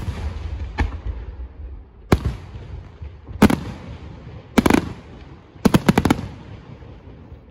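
Aerial firework shells bursting overhead in a display. A loud bang comes right at the start, then single bursts at intervals of about a second, a double bang, and a rapid string of four or five bangs about six seconds in. Low rumbling echo carries between the bursts and dies away near the end.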